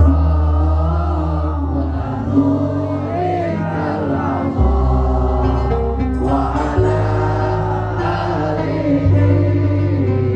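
A male voice singing a qasidah (devotional song in praise of the Prophet) with gambus band accompaniment. Deep held bass notes change pitch every two seconds or so beneath the melody.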